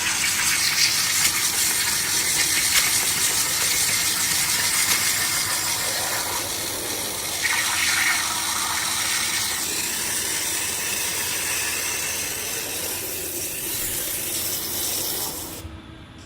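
High-pressure water jet from the newly fitted Hypertherm DiaLine waterjet cutting head firing in a loud, steady hiss and spray, cut off suddenly near the end. The test shows the new head working.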